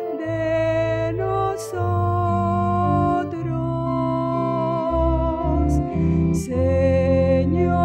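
Slow church music: sustained keyboard chords under a singer holding long, wavering notes.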